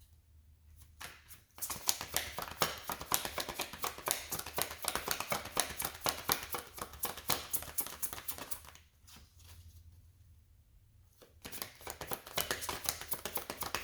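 A tarot deck being shuffled by hand: a long run of rapid card clicks and flutters, a pause of about two seconds, then the shuffling starts again near the end.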